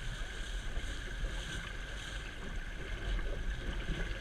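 Water rushing and splashing in the wake of a sailboat under way, with wind buffeting the microphone as a steady low rumble.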